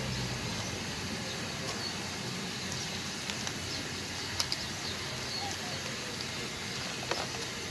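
A few sharp small clicks as the plastic chassis and wheels of a diecast toy car are handled and fitted together, the strongest about halfway and near the end, over a steady background hiss with faint high chirps.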